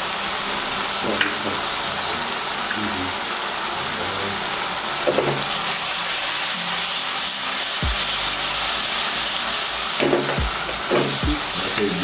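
Pork sizzling in a pot on a gas burner, a steady frying hiss. The pot is shaken to toss the meat, with a few knocks in the second half.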